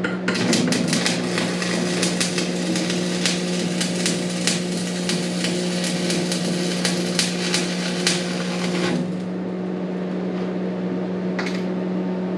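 Stick (arc) welding: the electrode's arc crackles and sputters for about nine seconds, then stops. A steady low hum carries on underneath, and there is a single click near the end.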